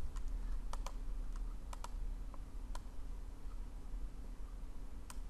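Light, irregular clicking of computer controls, about a dozen clicks, over a faint steady low hum.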